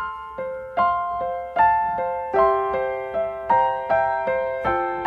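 Intro music: a gentle piano-style keyboard melody, each note struck and left to fade, a new note or chord about every half second.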